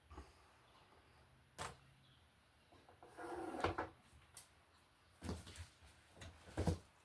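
Stiff electrical wires being handled and bent together in a wall box: a string of faint clicks and knocks, with a short, louder scrape a little past three seconds in.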